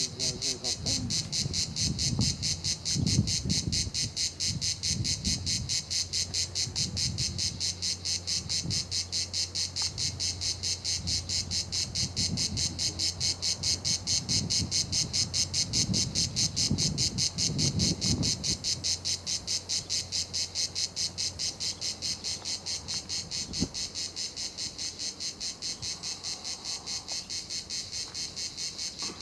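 Cicadas singing in a dense, loud chorus: a continuous high buzz that pulses rapidly, about four beats a second.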